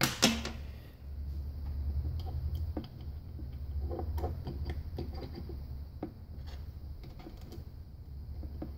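A screwdriver set down on a steel workbench with one sharp clack just after the start, then scattered light clicks and taps of small metal parts as a Hydra-Matic transmission valve body is fitted together by hand. A steady low hum runs underneath.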